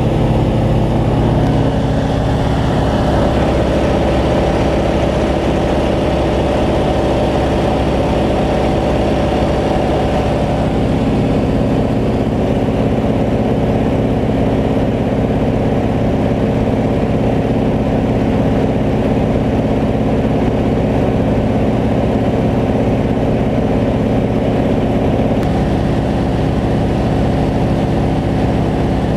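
PZL-104 Wilga 35A tow plane's nine-cylinder radial engine running steadily at power while towing a glider, with a slight shift in its tone about ten seconds in.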